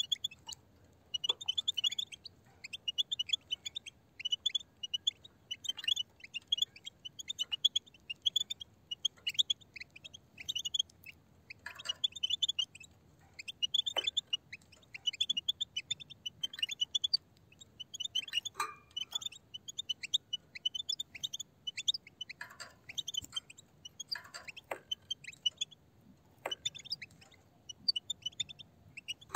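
A flock of European goldfinches twittering together, a dense run of quick high chirps that hardly lets up. Scattered sharp clicks come through as the birds peck and crack seed on the ground.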